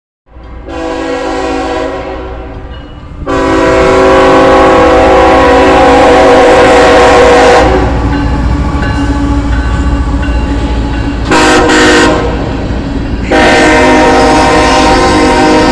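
Train locomotive horn sounding over the rumble of a passing train: two long blasts, a short one, then another long one, the pattern of a grade-crossing warning.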